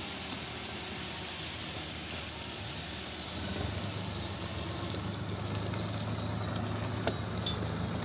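Farm tractor's diesel engine running as it drives toward the microphone, growing louder about three and a half seconds in, over a steady hiss. A single sharp snap near the end.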